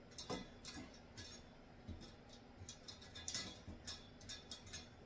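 Faint, irregular metallic clicks and clinks of rotisserie spit forks being handled and fitted together by hand, busiest about three seconds in.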